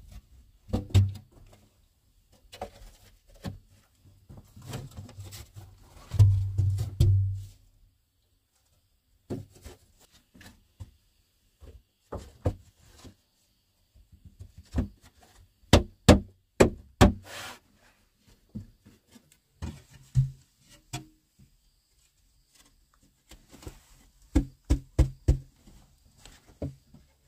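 Wooden boards being set down and knocked into place against packed earth: irregular knocks and heavier thuds, some in quick runs of several knocks, with light scraping between.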